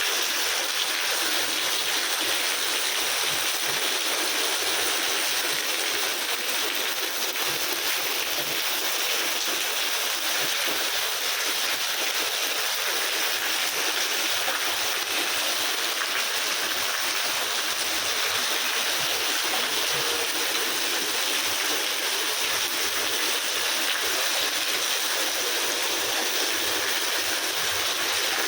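Rain pouring steadily: a dense, even hiss that holds the same level throughout with no let-up.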